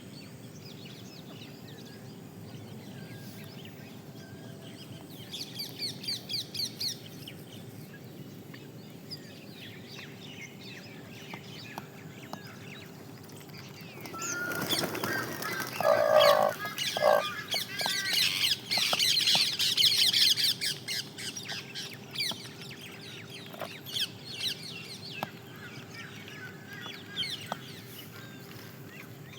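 Peahen calling: two short, loud calls about halfway through, among bursts of rapid, high chirping. A steady low hum runs underneath.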